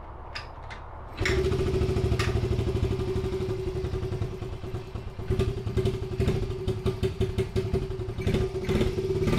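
A 1991 Honda Z50R's small four-stroke single-cylinder engine is kick-started from a cold start after months unused, catching about a second in. It then idles with a fast, even putter, purring like a kitten, and its idle sags briefly midway.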